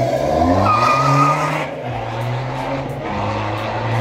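BMW 2 Series coupe pulling away hard, its engine revving up with a short tyre squeal about a second in; the engine note breaks off briefly and then pulls on steadily.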